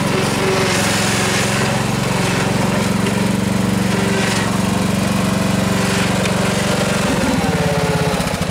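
Riding lawn mower's engine running steadily as it tows a trailer loaded with logs, then slowing down in the last second or so.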